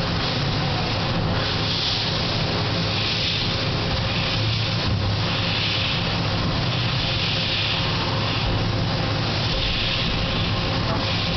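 Takamaz XY 1000 CNC lathe running, a steady mechanical hum with a hiss that swells and fades every second or two.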